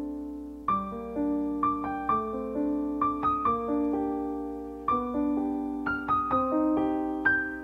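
Background music: a gentle solo piano melody, notes struck and left to ring.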